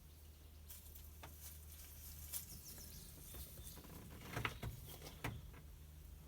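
Faint scattered clicks and rustles over a low steady hum, the loudest clicks about four and a half and five seconds in.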